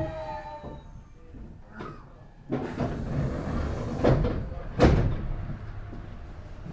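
Meitetsu 6000 series train's sliding passenger doors opening at a station stop. A sudden hiss starts about two and a half seconds in, and the door panels knock twice, at about four and five seconds in, the second knock the loudest.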